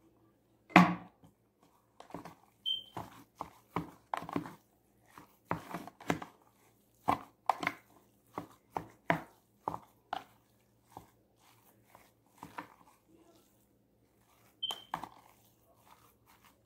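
A spoon mixing marinated ground meat in a plastic bowl: irregular knocks and scrapes against the bowl, one or two a second, with a brief high squeak twice.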